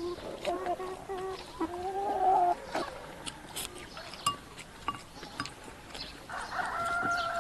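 Chickens clucking, then one long, level call near the end. Short clicks and slurps of noodles being eaten with chopsticks come in between.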